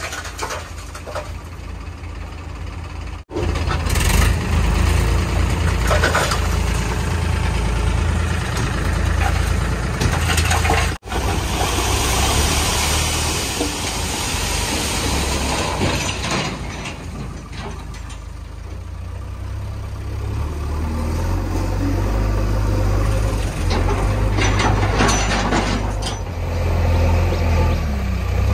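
Diesel engines of a farm tractor and a JCB 3DX backhoe loader running steadily, with a load of soil pouring out of a tipping tractor trailer a little before the middle.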